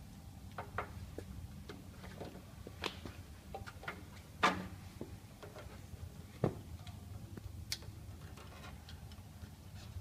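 Irregular small clicks and knocks of a power cord and its plastic connector being handled and fitted inside an electric pallet jack's wiring compartment, with louder knocks about four and a half and six and a half seconds in, over a low steady hum.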